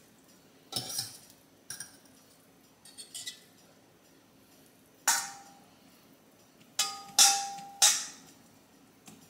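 A metal fork clinking against stainless steel cookware as boiled chicken thighs are lifted out of the pot into a bowl: about eight separate clinks, the later ones louder and briefly ringing.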